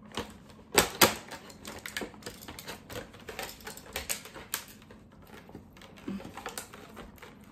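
Hard plastic packaging tray clicking and crackling as a small hand tool is pried and pulled out of it: irregular sharp clicks, the loudest pair about a second in.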